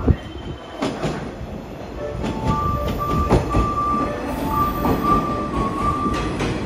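A JR 115 series electric train pulls into the platform and runs close past, rumbling, its wheels clicking over the rail joints. From about two seconds in, a high steady squeal comes and goes as the train slows.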